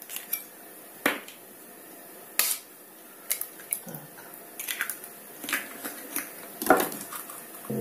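Two eggs being cracked and their shells pulled apart over a plastic bowl of milk: a string of sharp, irregular cracks and clicks, with the contents dropping into the milk.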